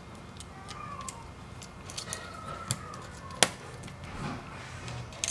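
Small scattered clicks and taps of fingertips and small metal parts inside an opened iPhone 6s Plus as the battery connector's cover plate is set back in place, with one sharper click about three and a half seconds in.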